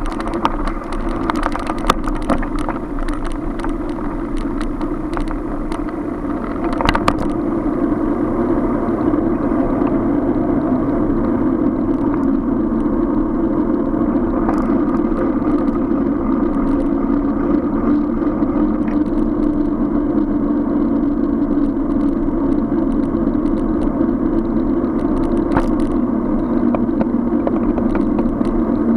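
Steady city street noise heard from a moving bicycle: car traffic and road rumble, with a few sharp clicks and rattles.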